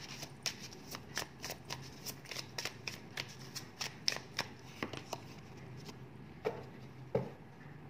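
Oracle cards being shuffled by hand: a quick run of crisp card clicks, several a second, for about five seconds, then two louder snaps near the end.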